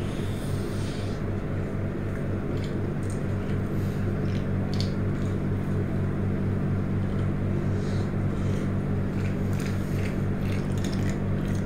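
Close-up chewing and squishy mouth sounds of eating skewered telur gulung (rolled egg), with scattered soft clicks, over a steady low hum.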